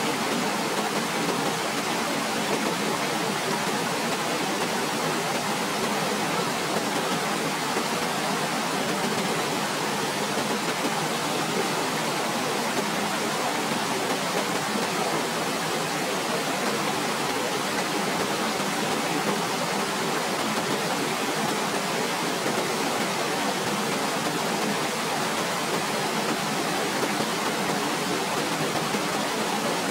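Waterfall: a steady, unbroken rush of falling water, even hiss across the whole range with little deep rumble.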